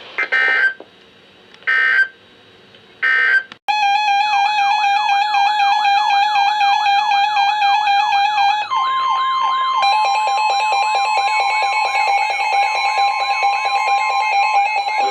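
Three short bursts of EAS digital data tones (SAME code), marking the end of the weather warning message. Then a loud electronic alarm starts: a tone warbling up and down about three times a second over a steady tone. About five seconds later a second, higher steady tone and a fast high wobble join it.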